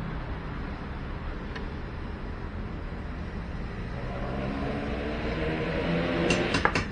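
Steady low background rumble, with music fading in about halfway through and a few sharp clicks near the end.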